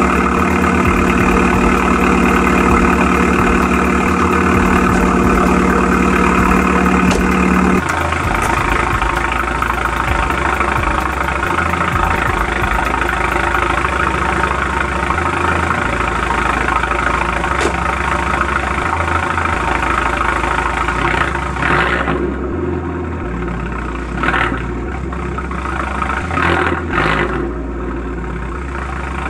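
MK4 Volkswagen Jetta's turbocharged 2.0 engine idling through a homemade 3-inch turbo-back exhaust with two small race mufflers in a row. A steady drone drops away abruptly about eight seconds in, and near the end come a few short blips of the throttle.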